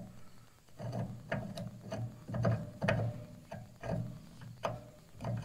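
Hand tap cutting new threads into a cast-iron tractor manifold, turned by a tap wrench in short strokes: a series of irregular metallic clicks and creaks, about halfway through the cut.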